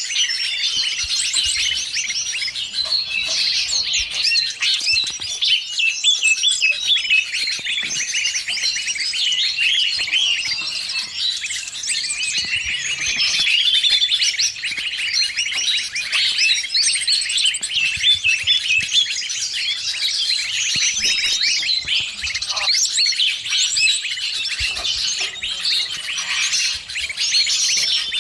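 A dense chorus of many small songbirds chattering and chirping without pause, mixed with green leafbird calls. It is a bird-lure recording of agitated 'noisy birds' played to draw wild birds in.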